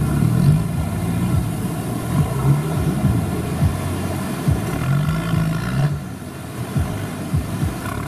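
Four-wheel-drive off-road vehicle's engine running hard, its pitch rising and falling as it revs.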